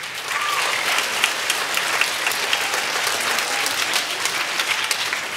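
Auditorium audience applauding steadily, a dense patter of many hands clapping, for an award winner.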